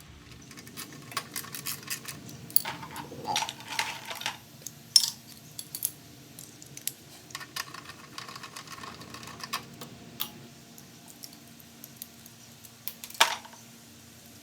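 Hand tools clinking and clicking against metal parts as the loose mounting bolts of a Briggs & Stratton Classic mower engine's gas tank and carburetor are undone; irregular clicks, with sharper clinks about five seconds in and near the end.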